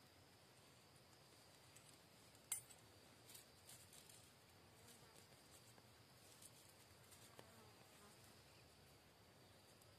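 Faint sharp strike about two and a half seconds in, then a few quick scrapes, as sparks are struck into a dry-grass tinder bundle until it catches. Under it runs a steady, faint, high insect whine.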